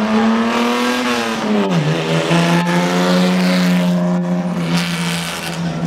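Engine of a 1934 Riley MPH, a small straight-six, running hard under acceleration. Its note climbs, drops sharply about two seconds in, then holds steady.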